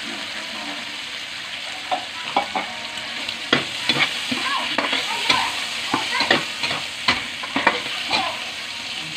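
Pork liver slices and onions sizzling in a metal wok while a metal spatula stirs them, scraping and clinking against the pan in quick irregular strokes from about two seconds in.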